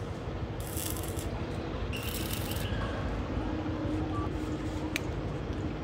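Two short crackling hisses of stick (arc) welding, each well under a second, as tack welds are struck on a galvanized square steel tube truss joint, over a steady low rumble.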